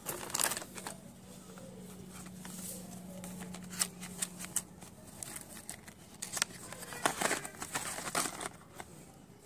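Hands handling stationery packaging and opening a cardboard box of Doms wax crayons: rustling and crinkling with scattered light taps and clicks.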